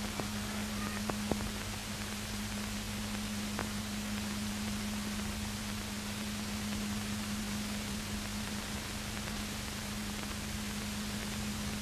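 Steady hiss with a constant low hum and a few faint clicks in the first few seconds: the background noise of an old film soundtrack carrying no sound.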